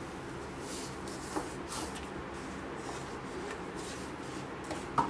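Sugar poured into a pan of thick beetroot purée, then stirred in with a wooden spatula: soft scraping swishes against the nonstick pan, with a light knock about a second and a half in and another at the end.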